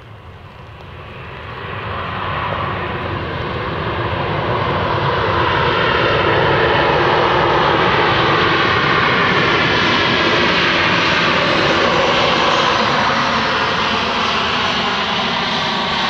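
Jet engines of a landing Boeing 737-800 (CFM56-7B turbofans) growing louder over the first six seconds as the airliner comes closer, then a steady loud jet roar.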